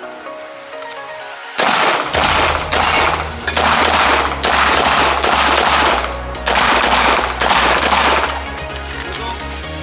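Background music with a steady bass beat starts about one and a half seconds in. Rapid strings of pistol shots from a competition stage run under it.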